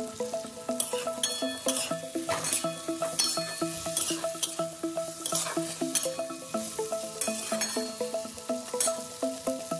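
A metal spatula scraping and stirring vegetables frying in a steel kadai, irregular strokes about once a second over a sizzle. Background music with short melodic notes plays throughout.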